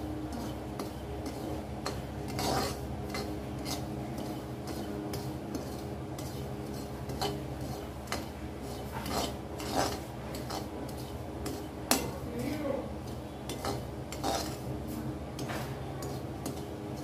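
Metal spatula scraping and tapping against a metal pan as semolina (suji) is stirred while it roasts in ghee. The clicks and scrapes come irregularly throughout, over a steady low hum.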